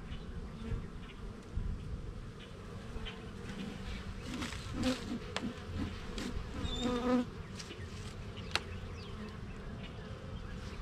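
Honeybees buzzing around an open hive, a steady hum. A louder buzz swells for about a second around seven seconds in, and a single sharp click follows shortly after.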